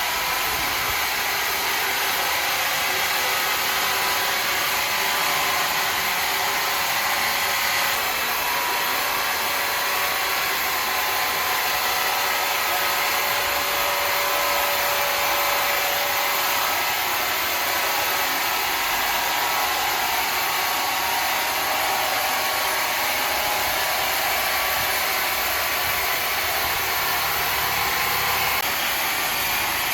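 Woodworking saw machinery running with a steady whir and a faint hum, unbroken throughout.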